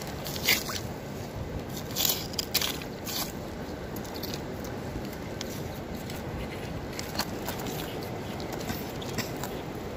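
Steady shoreline wash of water and wind, with scattered sharp clicks and scrapes of stones and shells being handled while digging for sea snails, a small cluster of them about two to three seconds in.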